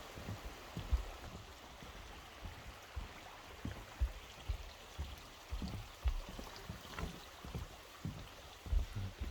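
Steady rush of flowing stream water, overlaid with frequent irregular low thumps.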